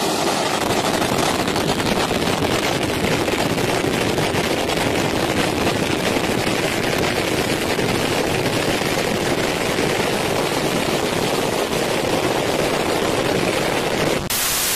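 Jet blast from a rear-engined airliner at takeoff power: a loud, steady roar with a dense rapid crackle as the blast and flying sand batter the microphone.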